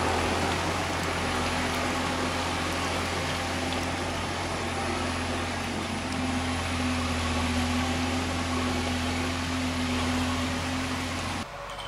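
Farm tractor's diesel engine running steadily while it drags a loaded log trailer through deep mud. The engine's tone holds nearly constant, and the sound drops off abruptly near the end.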